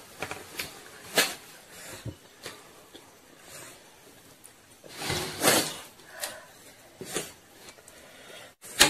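Forks and spoons clicking against a plastic bowl and a ceramic plate while instant noodles are eaten, with a longer slurp of noodles about five seconds in.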